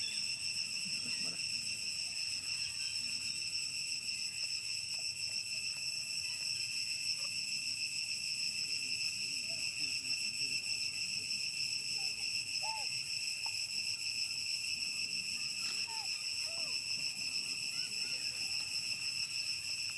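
Steady, unbroken, high-pitched insect chorus. A few faint short squeaks come in about two thirds of the way through.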